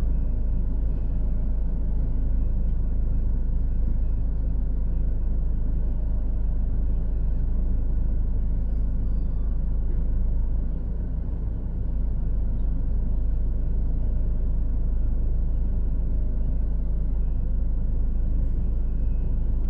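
Steady low rumble of an idling vehicle, heard from inside its cabin, with no distinct events.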